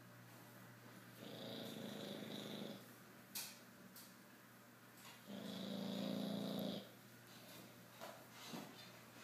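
A sleeping dog snoring: two long, rumbling snores about four seconds apart, each with a thin whistling note. There is a short click between them.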